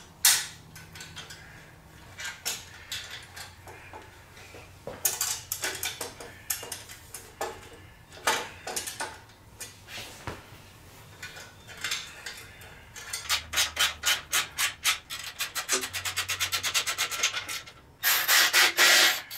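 Heat shields being fitted and clamped onto a motorcycle's exhaust header pipes: metal scraping and rubbing with scattered clicks. About two-thirds through comes a fast, even run of clicks as the clamps are tightened, and near the end a loud rasping scrape.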